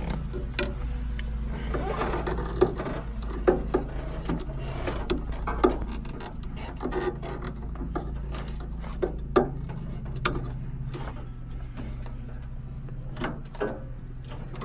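Irregular clinks and knocks of hand tools and metal parts being handled and set down, over a steady low hum that weakens about six seconds in.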